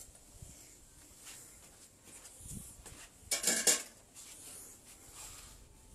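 Brief metallic clatter, a few quick clanks of metal knocking on metal about three and a half seconds in, with a couple of small knocks before it.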